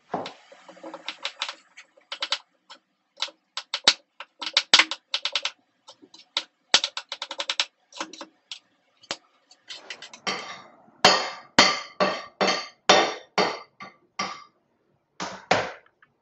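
Chef's knife cutting a raw beetroot on a cutting board: rapid runs of short knocks of the blade on the board, then from about ten seconds in slower, heavier chops at about two a second.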